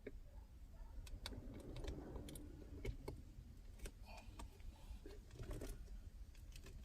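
Faint, irregular clicks and taps of fingers pressing and handling a stick-on carbon fiber overlay on the plastic trim of a car's gear shifter knob.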